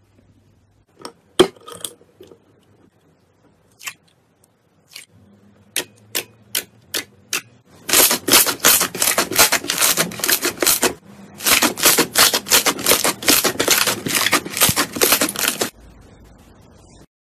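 A few scattered clicks at first. Then, from about eight seconds in, foamed slime squeezed between the hands gives a dense run of rapid clicking pops, with a short pause about eleven seconds in.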